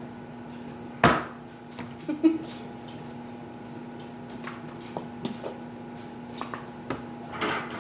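Quiet room with a steady hum and a few scattered knocks and clicks, the sharpest about a second in.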